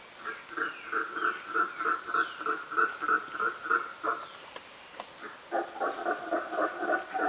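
Rhythmic animal calling: a pulsed call repeating about three times a second that breaks off after about four seconds. A second, lower-pitched pulsed caller starts about five and a half seconds in. Thin, falling high chirps sound above them.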